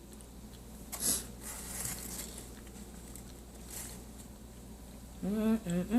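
Bite and crunch into a chunk of raw cornstarch about a second in, followed by softer chewing crunches. Near the end comes a short hummed "mm".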